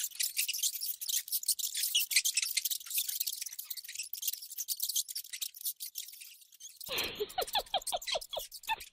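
Dense scratchy brushing and crackling, made of many tiny clicks. About seven seconds in it gives way to a quick run of about seven short squeaks that stops abruptly.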